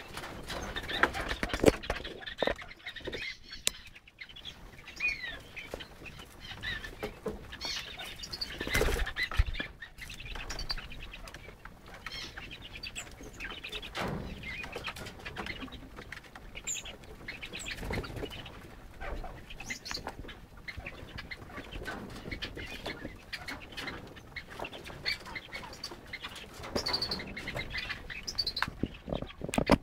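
Crested wood partridges foraging: continual small rustles and clicks of birds pecking and stepping about, with scattered short whistled chirps.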